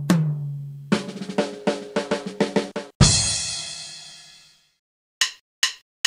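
Drum kit: a ringing tom hit at the start, then a fast run of about ten strokes across the toms, ending in a loud crash with a low thump about three seconds in that rings out for over a second. After a short pause come a few short, light clicks.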